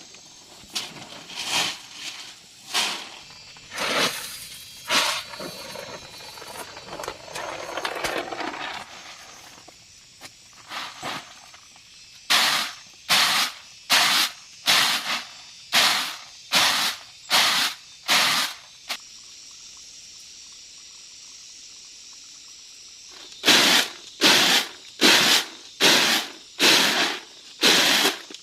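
Rhythmic scraping or swishing strokes, about three every two seconds, in two runs with a pause between them. A steady faint hiss fills the pause.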